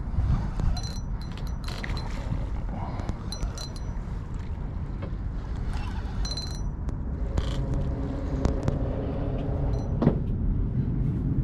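Fishing rod and reel worked against a hooked striped bass: scattered small clicks and clinks over a steady low rumble, with one sharper click about ten seconds in.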